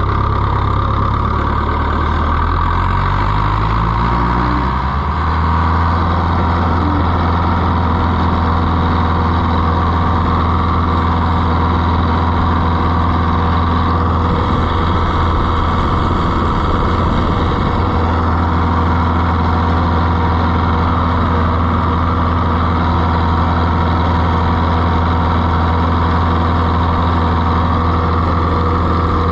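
Oliver 1365 tractor engine pulling away, its pitch rising over the first five seconds or so, then running steadily at road speed.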